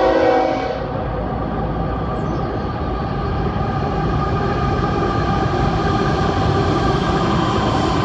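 A train horn sounds a chord of several steady notes that cuts off within the first second. The train then rolls past with a steady rumble of wheels and cars.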